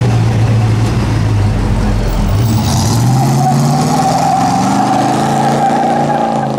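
Engine of a classic 1960s stepside pickup truck running low, then revving up about two seconds in and staying loud under hard acceleration as it pulls away.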